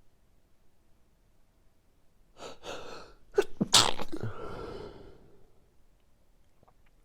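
A person sneezing during a sneezing fit: a few quick breaths in, then a loud, sharp sneeze about halfway through that trails off over a second or so.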